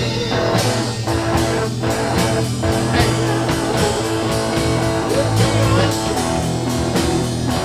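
Instrumental blues-rock music: guitar over a drum kit keeping a steady beat, with no singing.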